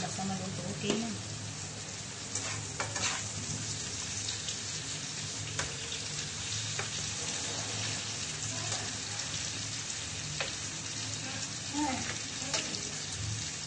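Food sizzling steadily in a black frying pan over a gas burner, stirred with a silicone spatula that scrapes and taps the pan now and then, most around the start and near the end. A steady low hum runs underneath.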